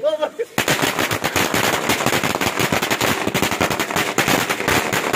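A string of firecrackers going off on the ground: a rapid, unbroken run of sharp bangs, many each second, starting about half a second in.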